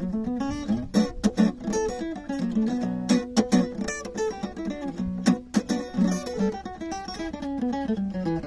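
Fender steel-string acoustic guitar played solo, picked melody notes mixed with quick strummed chords.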